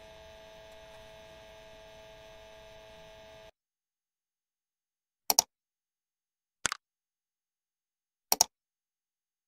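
A faint steady hum for about three and a half seconds, then silence broken by three short mouse-click sound effects, each a quick double tick, about a second and a half apart, from an animated cursor pressing like, share and subscribe buttons.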